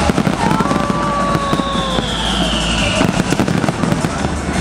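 Large fireworks display going off: a dense, continuous crackle of many small cracks, pops and bangs, loud throughout.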